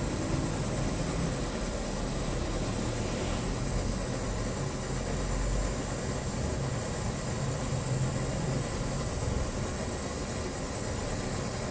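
Brass kerosene pressure stove (Primus-type) burning: a steady, rumbling rush from the burner with a thin hiss on top.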